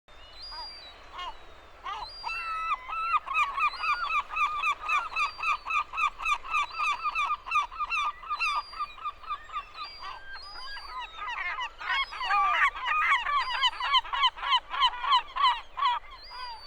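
Birds calling in long, fast series of repeated honking notes, several birds at once in the second half.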